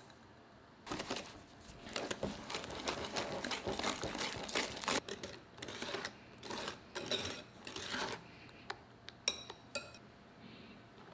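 Wire whisk beating sugar into thick melted-chocolate batter in a bowl: fast scratchy strokes of the wires against the bowl for several seconds. A few sharp clinks follow near the end.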